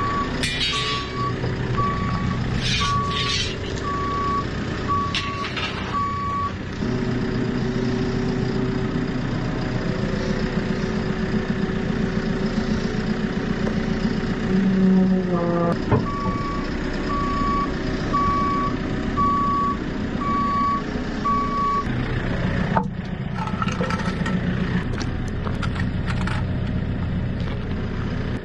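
A JCB farm machine's diesel engine running, with its reversing alarm beeping a bit faster than once a second for the first six seconds or so and again for about six seconds past the middle, as it reverses. Around the middle the engine revs up briefly.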